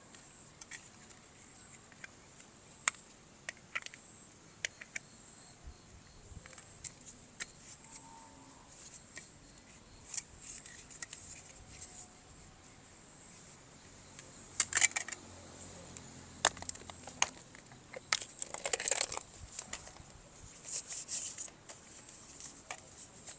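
Toy parts and packaging being handled: scattered sharp clicks and short rustles, with louder clusters of rustling a little past the middle and again near the end.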